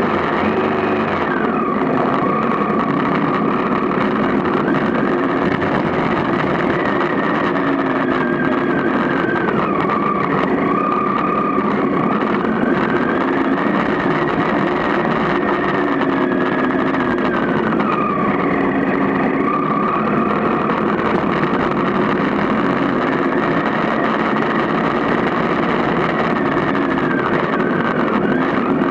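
Motorcycle engine running while riding, its pitch rising and falling every few seconds as the throttle opens and closes.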